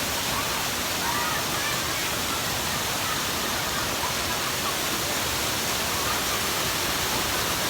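Waterfall rushing in a steady, even roar of falling water. Faint distant voices call out briefly about a second in.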